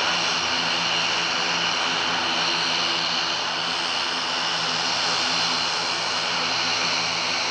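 Airbus C295 turboprop, its twin Pratt & Whitney PW127 engines and propellers running steadily as it taxis: an even engine hum with a broad hiss and a high whine.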